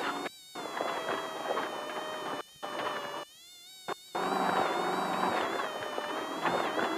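Off-road race car's engine running hard, heard from inside the car as a buzzing whine whose pitch wavers. The sound drops away abruptly three times: about half a second in, around two and a half seconds, and for most of a second after three seconds.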